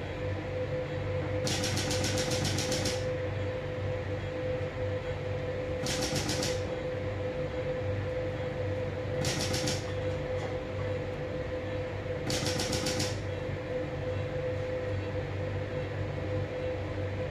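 Intracorporeal lithotripter fragmenting a urinary stone, firing in four bursts of rapid clicks, the first about a second and a half long and the rest under a second. A steady hum runs underneath.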